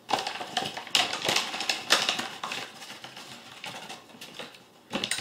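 Paper flour bag crinkling and rustling as it is handled and folded down, dense crackling for the first three seconds or so, sparser after, with a sharp crackle near the end.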